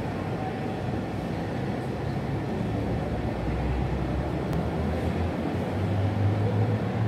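Steady low rumble with a faint hiss: the room noise of a large, nearly empty airport terminal hall, with no voices.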